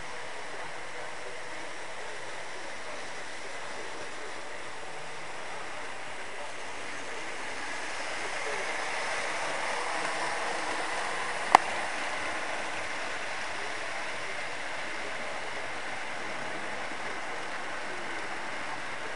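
Model Conrail diesel locomotive running on layout track, a steady rolling hum of motor and wheels that grows louder as the train passes close about eight to twelve seconds in. One sharp click sounds just after the loudest part.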